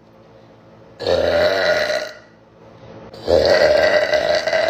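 A woman burping deeply twice: a burp of about a second, then a longer one beginning a little over three seconds in. Both are long and strong.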